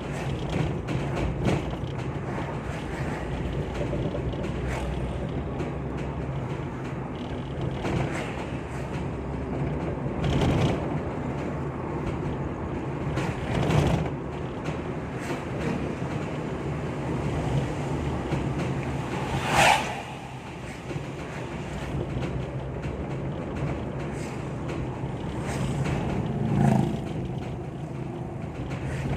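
Steady road and engine rumble of a moving ambulance, with scattered creaks and knocks from the keranda (funeral bier) carried in the back. The sharpest knock comes a little before the two-thirds mark, and another comes near the end.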